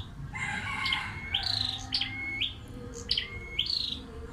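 Red-headed flowerpecker (chim sâu đầu đỏ) calling repeatedly: about five short, high phrases, each a brief steady note that jumps into a quick rising sweep, at an even pace.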